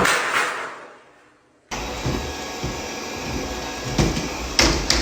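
Robot vacuum running with a steady whir, bumping into something three times near the end. Before it, a loud noisy burst opens and fades out, then cuts off.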